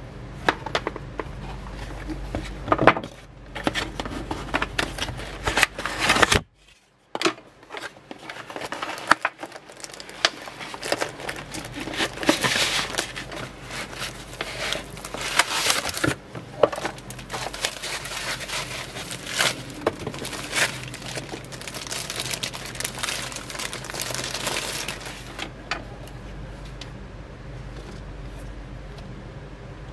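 Foam packaging wrap and plastic crinkling and rustling, with clicks and knocks, as hands unwrap a slim portable DVD drive. The sound briefly drops to near silence about six seconds in, and the handling grows quieter near the end.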